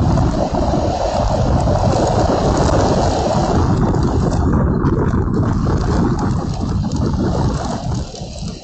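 Storm wind buffeting the microphone along with heavy rain: a loud, deep, continuous rushing that eases off briefly right at the end.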